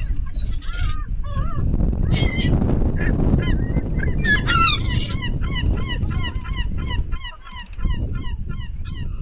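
Birds calling in short repeated calls, a few loud ones early on and then a regular run of about two a second through the second half, over a steady low rumble.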